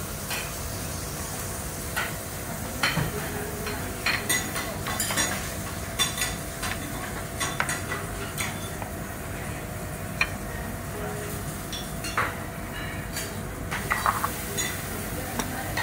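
Metal utensils clinking and scraping at a teppanyaki griddle, in irregular sharp strikes over a steady hiss.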